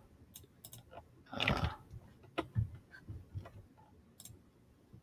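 A few soft computer mouse clicks, and a short mouth or breath sound close to the microphone about one and a half seconds in.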